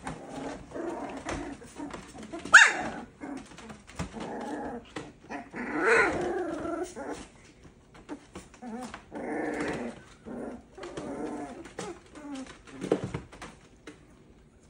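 Boxer puppies growling, yipping and whining as they play-fight, in repeated short bursts, with one sharp rising yelp about two and a half seconds in as the loudest sound. Scattered clicks of claws scrabble on the hard plastic pool floor.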